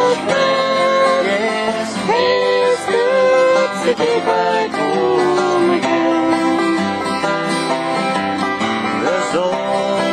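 A banjo picked and strummed in a fast folk tune, with a man singing long, sliding notes over it.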